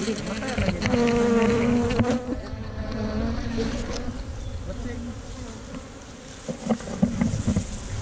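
Honey bees buzzing around the microphone as comb is pulled from their nest in a tree hollow: a steady hum that swells as bees pass close, loudest about a second in, with a few knocks and rustles from the comb being handled.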